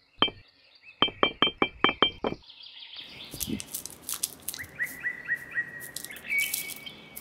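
Birds chirping: a quick run of about seven sharp chirps about a second in, then scattered chirps later. From about halfway, small pebbles clatter and click as they are tipped from a wire-mesh sieve.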